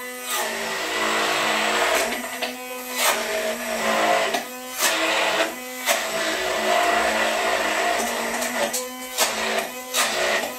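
Countertop blender running at speed, blending a thick cacao mousse mixture. Its motor sound dips and swells briefly several times as it works.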